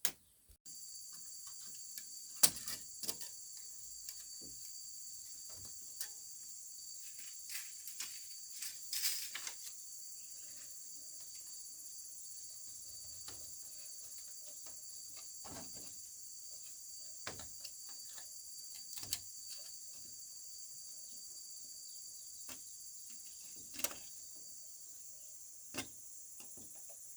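Steady high-pitched chorus of insects, crickets or cicadas, with scattered sharp clicks and knocks over it.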